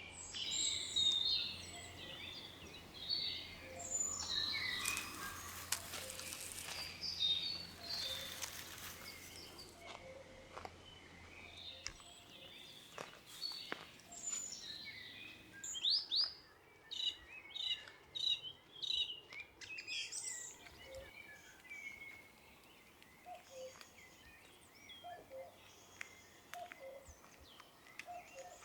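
Forest songbirds singing and calling, several at once, in short high chirps and whistles, with a run of quick repeated notes past the middle. A few seconds of even hiss come near the start.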